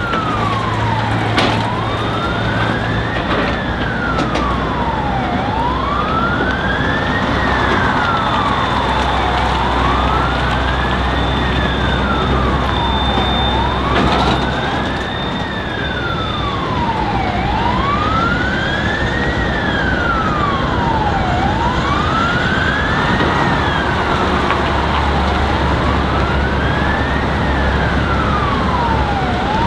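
An emergency siren wailing slowly up and down, about one rise and fall every four seconds, over the low running of passing Tatra army trucks' diesel engines.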